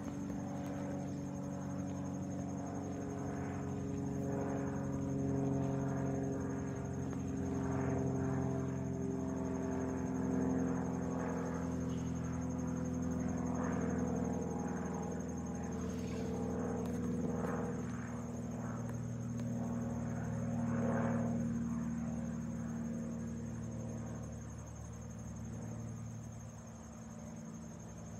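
Cirrus SR20 light single-engine propeller plane flying overhead: a steady, low, droning engine-and-propeller sound with several layered tones that drift slightly in pitch, fading somewhat near the end as it moves away.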